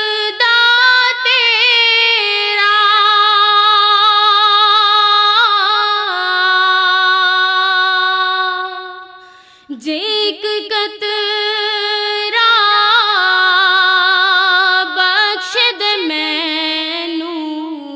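A woman singing a naat, long drawn-out notes with heavy vibrato and melismatic turns, with no instruments or beat. The singing breaks off briefly about halfway through for a breath, then picks up again and tails off near the end.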